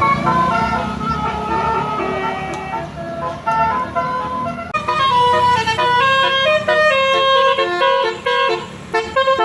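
Bus telolet basuri horn, a multi-tone air horn, playing a fast tune of stepped notes with several pitches sounding together, over the low rumble of the bus engine. About five seconds in, the notes turn brighter and sharper, and the engine rumble fades near the end.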